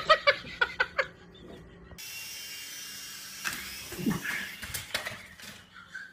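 A small battery-powered toy's motor whirring as the toy runs across the floor, with a few soft knocks about four seconds in. Before it, in the first second, a quick run of short pitched vocal sounds.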